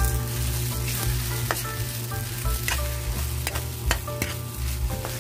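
Metal spatula scraping and knocking against a wok as fried rice with egg is stirred and tossed, over the steady sizzle of the rice frying in oil, with a steady low hum underneath.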